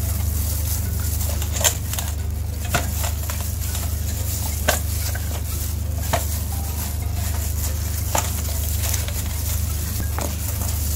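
A plastic-gloved hand working a wet spice paste into a raw fish head in a steel bowl: soft squelching and rubbing, with a few sharp clicks spread through it, over a steady low hum.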